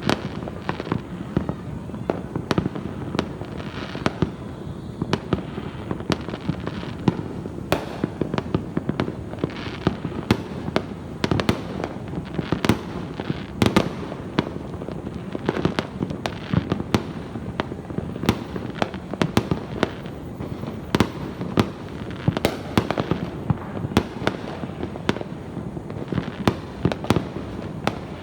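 Fireworks and firecrackers going off nonstop: a dense barrage of sharp bangs and crackling, several a second, over a continuous rumble of more distant explosions.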